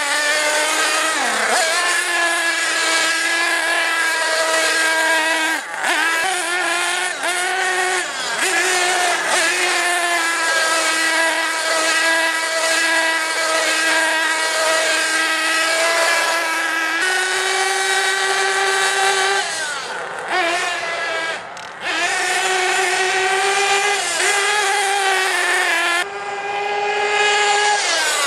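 Nitro Star F4.6 two-stroke glow engine of a 1/8-scale HPI Trophy Truggy running at high revs with a high, buzzing whine. The pitch dips briefly several times as the throttle is eased, then climbs again.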